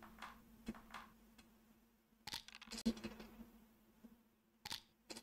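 Faint clicks over a faint steady low hum: a short cluster of clicks about two and a half seconds in, and two more near the end.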